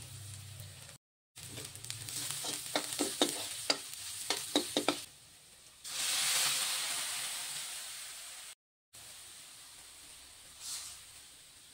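Onion, garlic and ginger sizzling in hot oil in a metal wok, with a metal spoon clicking and scraping against the pan. About six seconds in, soy sauce poured into the hot pan sets off a loud burst of sizzling that slowly dies down. Near the end, lime juice poured in brings a brief smaller hiss.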